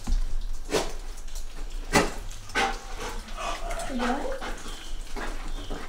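A dog whining in short, wavering whimpers that dip and rise in pitch, with a few sharp knocks in the first few seconds.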